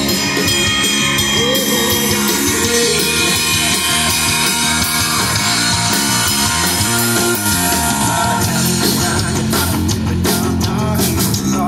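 Live rock cover band playing through QSC CP12 powered PA speakers: electric guitar, bass guitar and drum kit, steady and loud.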